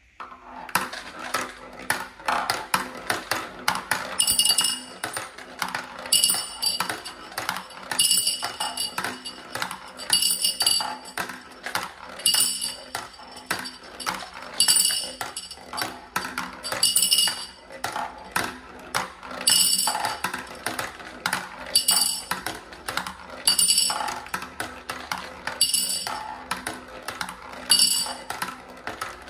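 Glass marbles rolling and clacking down a zigzag ramp toy, ticking as they drop from one track to the next. About every two seconds one lands in a glass jar with a bright ringing clink.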